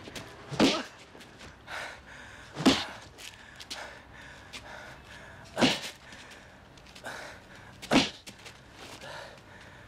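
Four hard punches land, heard as sharp hit sound effects spaced about two to three seconds apart, with fainter softer sounds in between.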